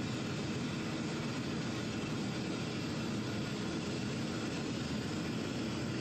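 Gas burner firing a small aluminium-melting furnace, running with a steady, even rushing noise.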